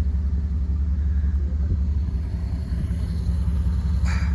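Vehicle engine idling steadily, a constant low rumble.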